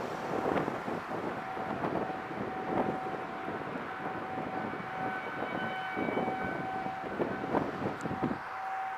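Outdoor tornado warning siren holding a steady tone. Heavy wind buffets the microphone over it and drops away near the end.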